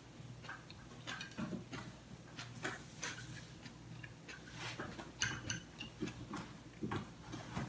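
Someone chewing crispy fried breaded pork cutlet with the mouth closed: faint, uneven crunches and mouth clicks, with a light tap or two of chopsticks on the dish.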